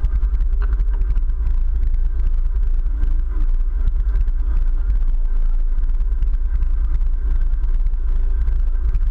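Steady low rumble of a sportfishing boat under way: its engines, with wind buffeting the camera microphone.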